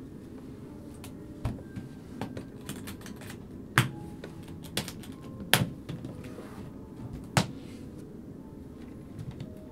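Hard-shell euphonium case being shut: small clicks and knocks as the lid comes down and is handled, then three sharp latch snaps about two seconds apart, over a low steady hum.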